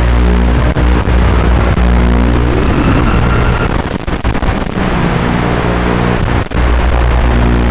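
FPV quadcopter's onboard audio, heard through the analog video link: a steady pitched hum with hiss from the motors and airflow. About three seconds in it turns rough and uneven with a few brief dropouts as the quad climbs and dives, then settles back to the steady hum near the end.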